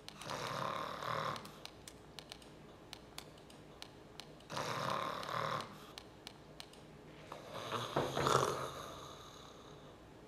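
A man snoring in his sleep: three long, rasping snores about every four seconds, the last one the loudest, with light clicks in between.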